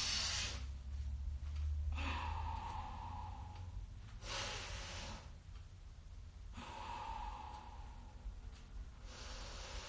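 A woman's slow, deep breathing: long rushing inhales and exhales of about two seconds each, alternating, two full breaths in all. A low hum sits underneath, strongest for the first two seconds.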